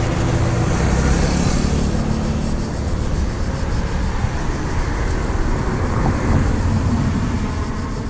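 Road traffic going by close at hand: engine and tyre noise of passing motor vehicles, fairly steady, easing slightly after about two seconds.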